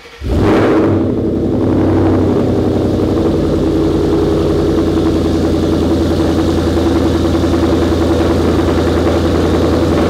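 2013 Mustang GT's 5.0 L V8 cold-starting: a brief crank, then it catches with a loud flare about half a second in and settles into a steady idle, loud through the exhaust in the garage.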